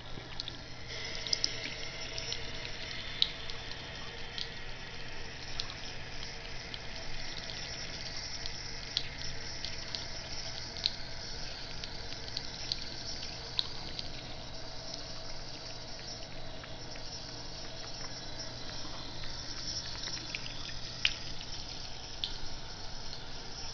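Tap water running in a thin stream into a bathroom sink, a steady hiss with scattered small drips and splashes.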